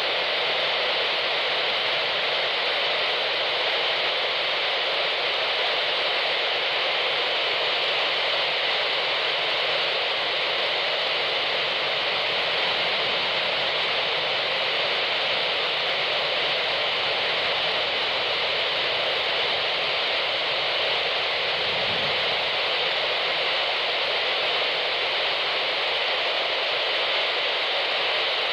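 Steady radio static hiss from an aircraft-band radio receiver, with no transmission coming through.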